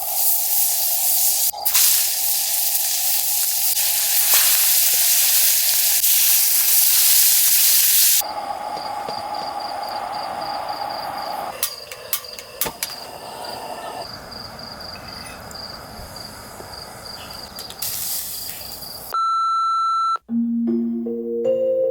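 A loud, steady hiss that cuts off sharply about eight seconds in, followed by quieter sounds with scattered clicks and a steady high tone. Near the end a short beep sounds, then soft music begins.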